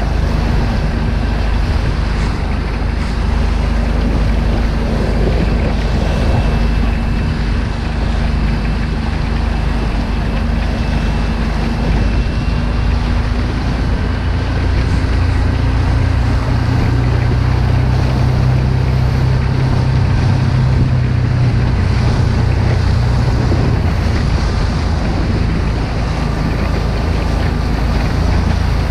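Tiller-steered outboard motor of a small rigid inflatable boat running steadily under way, with wind buffeting the microphone and water slapping the hull. The engine's tone shifts lower for several seconds past the middle.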